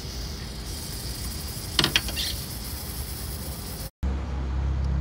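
A few sharp metallic clicks of a 17 mm wrench on the fuel-line fitting at the fuel rail, as the line is loosened, about two seconds in. Under them is a steady background hiss, and the sound cuts out briefly near the end.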